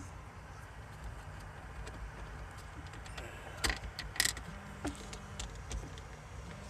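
Small metallic ticks and taps of a battery cable clamp and hand tools being handled, with two sharper clicks about four seconds in, over a low steady hum.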